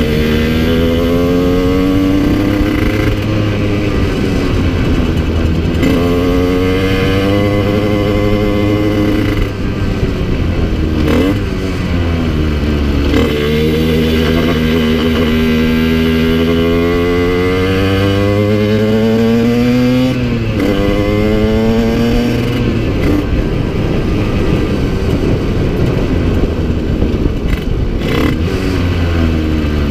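Yamaha TZR50 two-stroke engine, bored to 70cc with a Technigas exhaust, under way: its pitch climbs and drops back sharply again and again as it runs up through the gears, with one long climb in the middle. Its top end is worn and down on power, by the owner's account.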